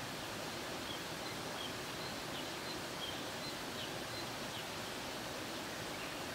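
Steady outdoor background hiss with scattered faint, short, high chirps.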